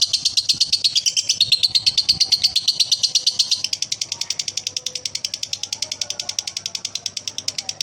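Male lovebird's long, unbroken chattering trill (the 'ngekek'), a fast even run of shrill high notes that grows somewhat softer about halfway through.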